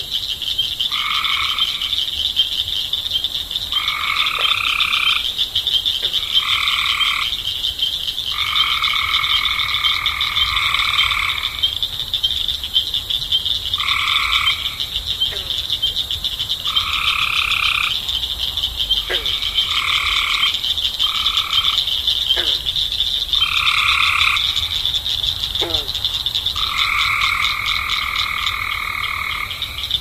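A chorus of pond frogs calling. A steady high, fast-pulsing trill runs underneath, and louder trilled calls of one to two and a half seconds come again and again at irregular gaps. A few faint short calls slide down in pitch.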